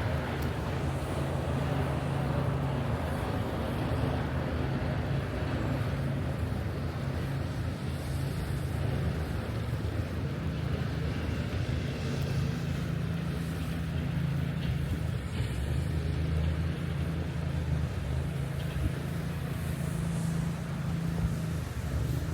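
Steady city street noise with a low rumble of traffic, mixed with wind buffeting the microphone in a snowstorm.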